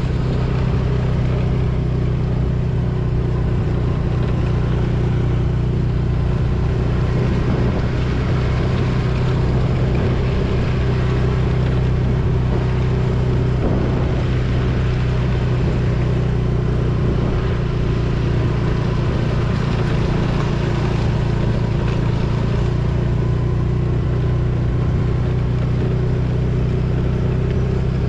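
TVS Jupiter scooter's single-cylinder engine running at a steady cruise, with a constant hum and an even rushing noise beneath it.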